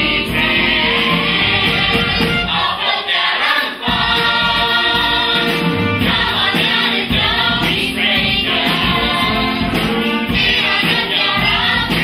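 A large cast of school pupils singing a musical-theatre ensemble number in chorus over instrumental accompaniment. The low accompaniment thins out for a moment about three seconds in, then the full ensemble comes back in.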